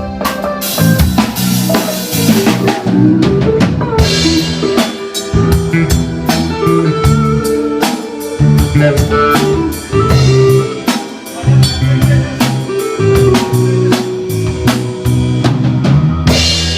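Live band jamming: a drum kit playing a steady beat with cymbals, over electric guitar and bass.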